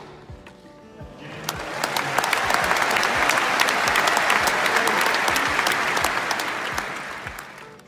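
A large tennis crowd applauding. The clapping swells in about a second in and fades away near the end.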